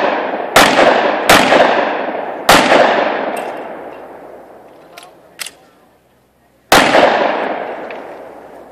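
Handgun shots: three in quick succession over the first two and a half seconds, then after a pause of about four seconds a fourth. Each shot is loud and trails off in a long echo, and two much fainter sharp cracks come just before the last shot.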